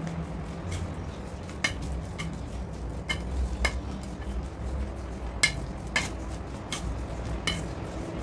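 Metal spoon stirring raw minced meat in a stainless steel bowl, clinking against the bowl about eight times at irregular intervals, with a brief ring after each clink.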